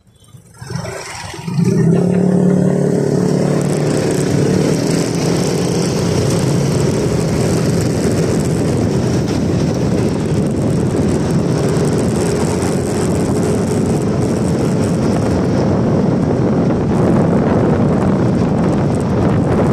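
A two-wheeler pulling away and riding at road speed, with wind rushing over the handlebar-mounted microphone and a steady drone underneath. The noise starts about a second and a half in and holds steady after that.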